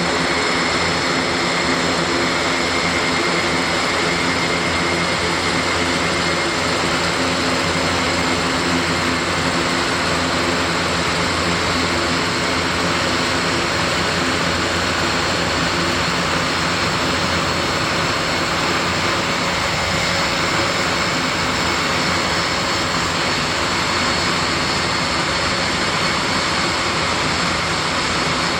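Airbus A400M's turboprop engines and propellers running steadily: an even drone with a steady high whine over it.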